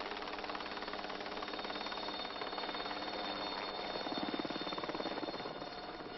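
Helicopter hovering overhead, its rotor beating rapidly over a steady engine hum; it grows louder about four seconds in.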